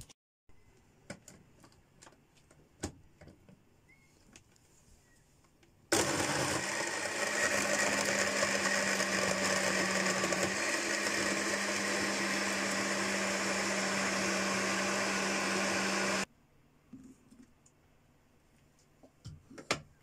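Personal bottle blender blending fruit for about ten seconds. The motor starts suddenly about six seconds in, runs loud and steady with a constant hum, then stops abruptly. A few light clicks come before it starts.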